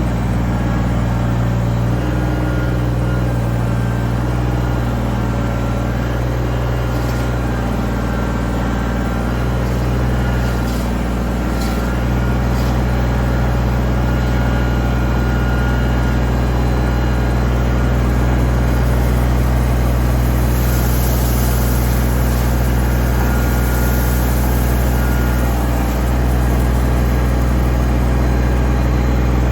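Heavy engine running steadily at a low idle, with a deep, even hum. A few faint knocks come through over it.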